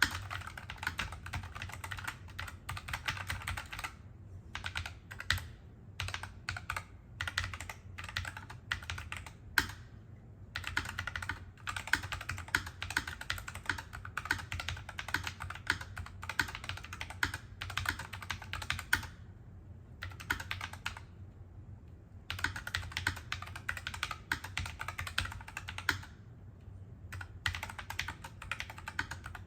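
Typing on a NuPhy Air75 low-profile mechanical keyboard fitted with NuPhy Wisteria tactile switches: runs of rapid key clicks, broken by a few short pauses.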